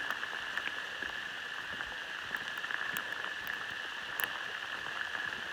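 Sleet falling steadily: a constant hiss dotted with many small, sharp ticks as the ice pellets strike.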